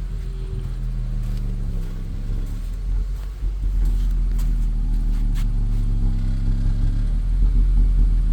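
Exhaust note at the tailpipe of a 2005 Acura TL's 3.2 L V6 idling, a steady low drone that gets louder about three and a half seconds in. The engine is misfiring at idle, which the owner cannot yet trace.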